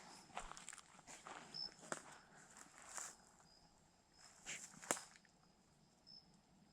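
Slow, irregular footsteps crunching on dry leaf litter and twigs, with a sharper snap about five seconds in, then quieter. Faint insects chirp steadily behind.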